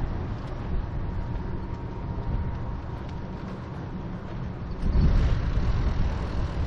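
Steady low rumble of wind on the microphone and road noise from a bicycle ride, getting louder about five seconds in.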